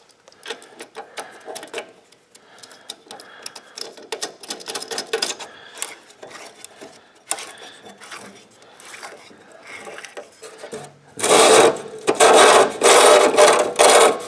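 Light clinks and handling noises of a cutoff saw's abrasive wheel and arbor hardware being fitted. About 11 seconds in, loud bursts of rapid ratcheting clicks follow as the self-ratcheting toolless wheel-lock knob is turned tight.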